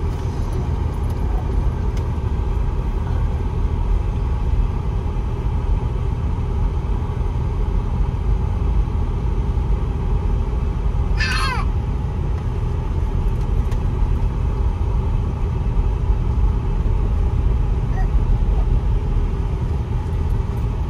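Steady low rumble of a car driving on a dirt road, heard from inside the cabin: tyre and engine noise. About halfway through, a brief high whistle falls sharply in pitch.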